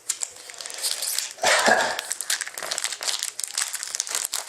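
Trading-card pack wrapper crinkling as it is handled and opened, loudest about a second and a half in.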